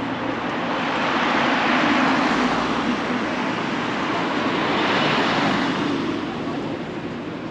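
Road traffic passing close by, a rush of tyre and engine noise that swells up, eases slightly, swells again and then fades away, as of one or two vehicles going past.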